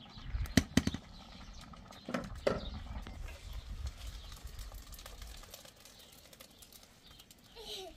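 Sharp clanks of a metal cooking pot being handled, two loud knocks about a second in and more around two seconds, then lower, steadier noise as the boiled rice is drained through a strainer into a plastic basin.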